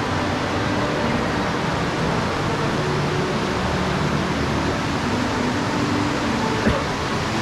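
Steady rushing of a large indoor fountain's water under a faint murmur of distant voices, with one brief knock near the end.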